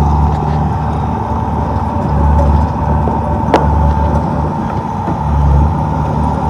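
Komatsu D31P crawler bulldozer's diesel engine running under working load, its low rumble swelling and easing every second or so as the machine pushes. A steady thin whine runs over it, and a single sharp click comes about three and a half seconds in.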